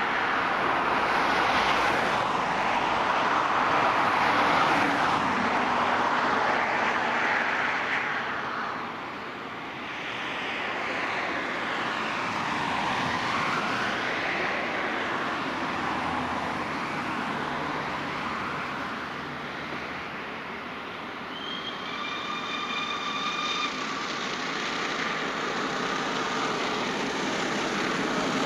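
Three-cylinder Peppercorn A1 Pacific steam locomotive 60163 Tornado working hard with a passenger train, the exhaust and the train's running making a steady rumbling rush. Around three quarters of the way through, a short high whistle sounds.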